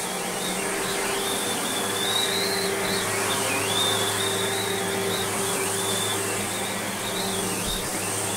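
Sebo Automatic X1 upright vacuum cleaner running while pushed back and forth over a carpet: a steady motor noise with a low hum and a high whine that wavers up and down in pitch.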